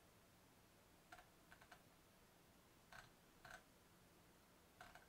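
Near silence broken by about six faint, short computer clicks at irregular intervals, a few of them in quick succession.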